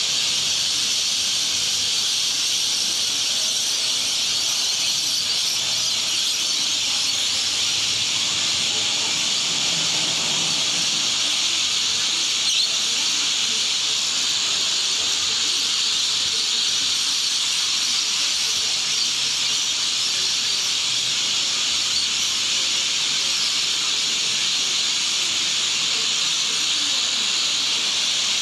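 A large flock of lorikeets screeching in flight, hundreds of shrill calls merging into one steady, high-pitched din.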